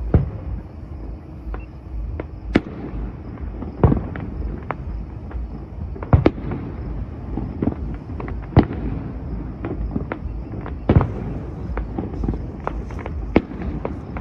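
Fireworks bursting, a string of sharp bangs every second or two at uneven spacing, some louder and some fainter, over a steady low rumble. The recording is cut off above about 6 kHz.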